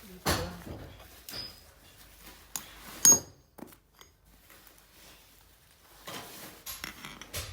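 Scattered knocks and clatter of objects being handled, with one loud sharp clank about three seconds in that rings briefly.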